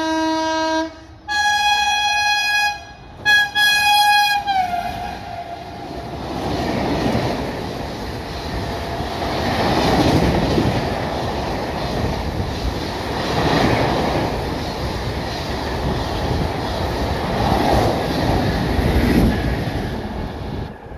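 WAP-7 electric locomotive's horn: a long blast breaking off about a second in, then two shorter blasts, the last one dropping in pitch as the locomotive passes at speed. Then a through express's LHB coaches rush past with loud wheel-on-rail noise that swells and fades several times, ending abruptly as the last coach goes by.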